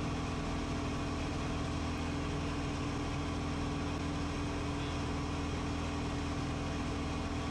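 Steady drone of a Van's RV-14's piston engine and propeller in cruise flight, heard inside the cockpit. It holds one unchanging pitch throughout.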